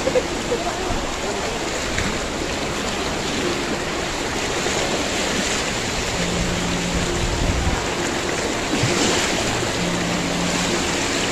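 Tidal seawater flood rushing and churning through a street, a steady noise of fast-moving water: the sea pouring in through a breached embankment.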